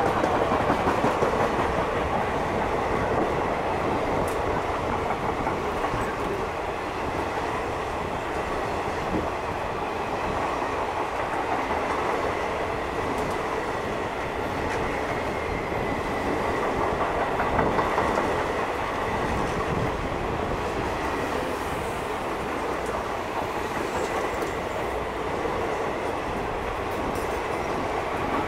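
An Indian Railways express train's passenger coaches running past at speed, a steady clatter of wheels over the rail joints, with a faint high whine.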